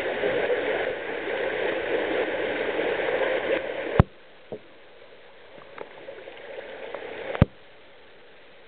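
Water splashing and dripping in a cave pool, close to the water surface. After about four seconds a sharp click comes and the sound drops to faint scattered drips, with another sharp click near the end.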